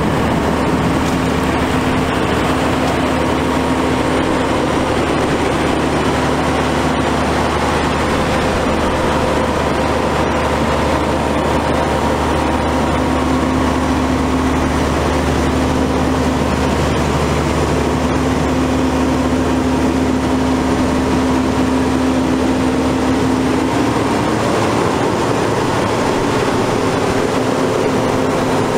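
Cummins ISM six-cylinder diesel engine of a grapple dump truck running steadily, with a humming tone that drops out for a few seconds in the middle and returns.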